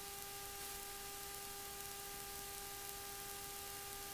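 Faint steady hiss with a constant electrical whine, one held tone with its overtones: the background noise of the recording, with no other sound.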